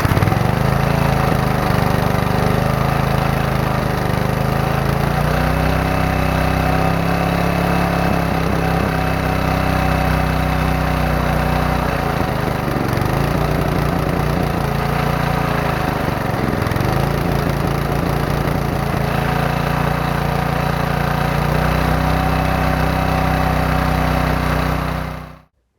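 Small single-cylinder engine running steadily, its speed sagging briefly and recovering twice midway, then cutting off suddenly near the end.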